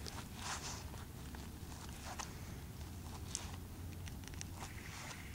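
Faint, scattered rustles and small taps of a knife cutting frozen brown-and-serve sausage on a sheet of paper.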